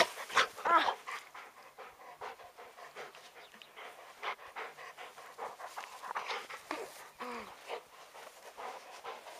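Dog panting hard in quick irregular breaths close to the microphone, winded from rough tug-of-war play with a rope toy. There are short pitched sounds about a second in and again near seven seconds.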